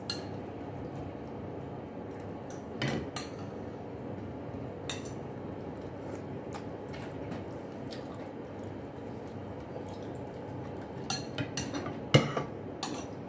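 Spoons clinking against ceramic bowls and plates while eating: scattered clinks, a few about three seconds in and a cluster near the end, the loudest about twelve seconds in, over a steady background hum.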